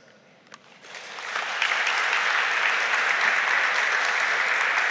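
Audience applauding. The clapping starts about a second in, builds within half a second and then holds steady.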